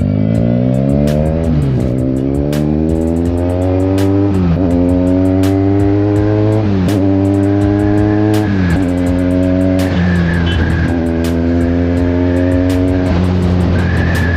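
Benelli 300 motorcycle with an IXIL aftermarket exhaust accelerating through the gears. The engine note climbs in pitch and drops back at each upshift, several times in a row, then runs at a steadier pitch.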